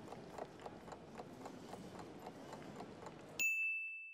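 Countdown timer sound effect: a clock ticking about four times a second over a soft background, cut off about three and a half seconds in by a single bell ding that rings and fades, marking that time is up.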